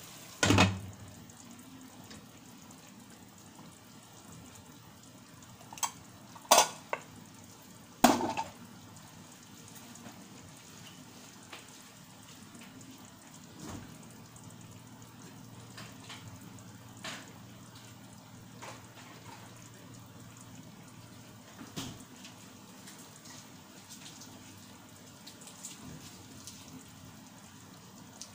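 Chicken gizzards and liver sizzling quietly in a covered frying pan. A glass pan lid clanks down onto the pan about half a second in, and there are three more sharp clinks against the pan between about six and eight seconds in.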